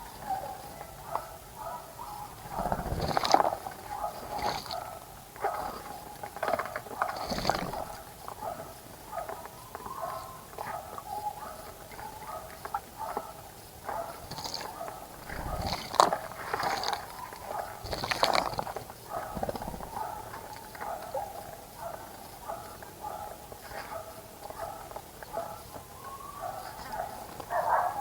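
Birds bathing in a bird bath: several brief bursts of splashing and wing-fluttering in the water, over continuous low chattering animal calls.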